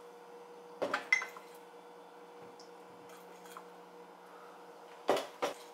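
Spoon clinking in a small glass dish as protein powder is stirred with water, with a sharp clink about a second in and two louder knocks near the end, over a steady faint hum.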